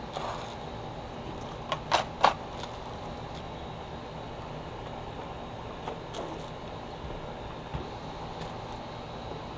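Metal grilling tools being handled and set down, giving three sharp clicks close together about two seconds in and a few fainter taps later, over a steady background hum.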